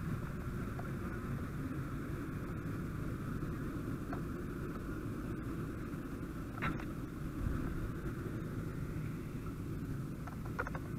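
Fire engine's engine running steadily, heard from inside the cab.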